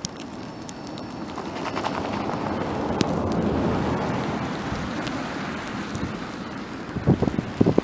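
Wind gusting in a snowstorm, swelling to a peak about halfway through and easing off, with a few low thumps of wind buffeting the microphone near the end.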